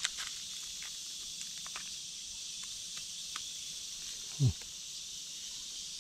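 Steady high-pitched chorus of forest insects, with scattered light clicks, and one brief low sound sliding downward about four and a half seconds in.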